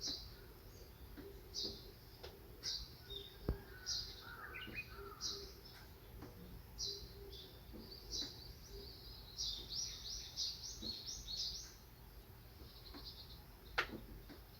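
Small songbirds chirping: short high chirps repeated every second or so, with a quicker run of chirps about ten seconds in and a lower warbling phrase about four seconds in. A sharp knock sounds twice, about three and a half seconds in and near the end.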